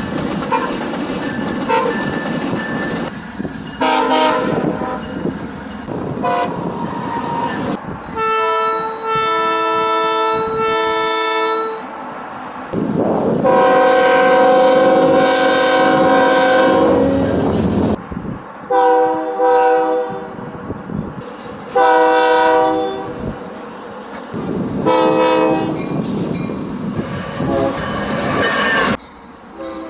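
Train air horns sound a series of chords, some held long and some in short repeated blasts, over the rumble and wheel clatter of passing trains. The horn chord and the background change abruptly several times, as separate recordings of different trains are cut together.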